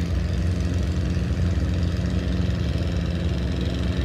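Antique farm tractor's engine running steadily under load as it pulls a weight-transfer sled, a continuous low drone.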